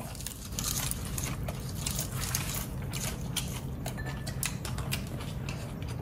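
Someone chewing and crunching food, fresh leafy greens among it, with many small sharp clicks.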